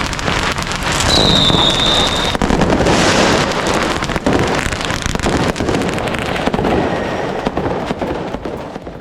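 Diwali firecrackers crackling in a dense, rapid stream of pops, with a brief high whistle about a second in. The crackling fades near the end.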